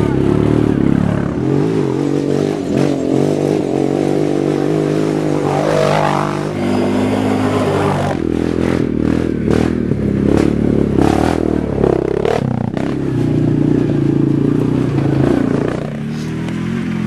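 ATV quad engine revving up and down as the quad climbs a rocky dirt track close by, with several sharp knocks and clatters about halfway through.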